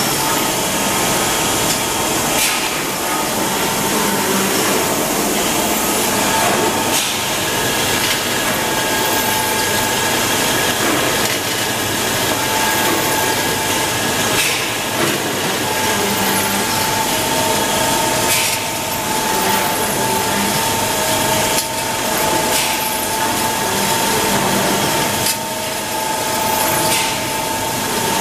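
Bench drill press running and drilling small knurled brass hinge barrels held in a jig, over continuous machine-shop noise. A thin high tone comes and goes as the bit cuts, with sharp clicks as parts are set in and taken out.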